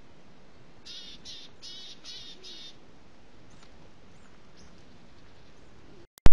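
A bird gives five harsh calls in quick succession about a second in, over a steady hiss; a few faint high chirps follow, and near the end a sudden loud click as the recording cuts off.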